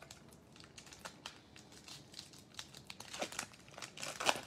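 A Topps baseball card pack's wrapper being torn open and crinkled by hand: a run of short crackles, the loudest near the end.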